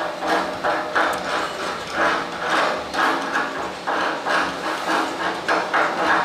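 Rhythmic scraping strokes on metal, about three a second, from cleaning slag off a weld.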